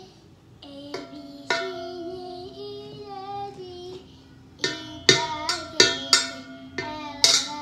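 A small child singing held, wavering notes. In the second half a wooden spoon knocks on a steel mixing bowl several times, each knock leaving a short ring.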